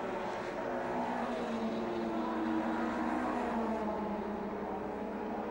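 Several touring-car racing engines running hard together as the cars pass, their notes sliding up and down as they rev.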